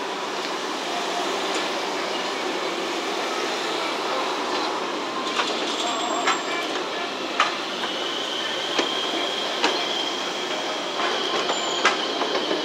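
Street tram rolling slowly through a curve, its wheels setting up a steady high squeal about halfway in, with sharp clicks as it crosses rail joints and points, and passing car traffic in the background.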